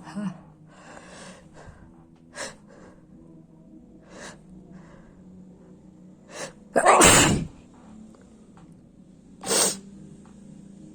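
A person sneezing: a brief sound about six and a half seconds in, then one loud sneeze. Another shorter loud burst follows about two and a half seconds later, and there are a few smaller short sounds in the seconds before.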